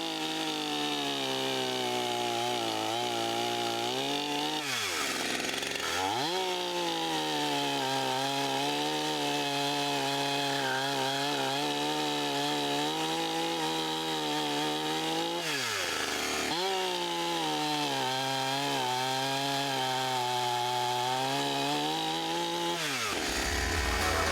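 Draper 45574 46cc two-stroke petrol chainsaw held at high revs while cutting wood, in three long runs. Between runs the throttle is released and the engine note drops sharply, then rises again as the next cut starts; the last run winds down near the end.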